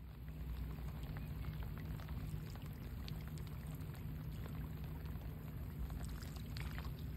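Heavy rain falling on sea water: a steady hiss with scattered sharp ticks of single drops, over a low steady rumble.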